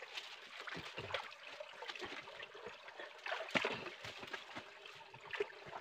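Shallow rocky stream trickling, with a run of short splashes as hands and a woven bamboo shrimp trap are worked into the water; the loudest splash comes about three and a half seconds in.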